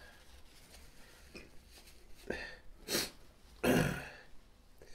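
A man's short coughs and throat-clearing, three bursts in the second half with the last the loudest, from a throat burning after extremely hot peppered nuts.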